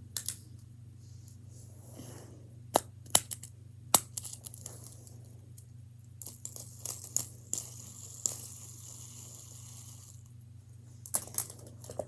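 Small plastic fidget toys being handled, a dimple fidget spinner among them: scattered sharp clicks and taps, the loudest about four seconds in, and a few seconds of rustling between about six and ten seconds in.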